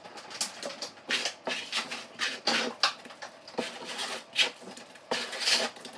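A metal trowel scraping and stirring wet floor-patch compound on a particle-board subfloor, in short, irregular strokes about twice a second.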